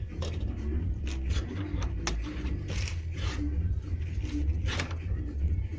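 A few scattered clicks and light knocks from a clamped clutch disc being handled and rocked to check its hub play and damper springs, over a steady low hum.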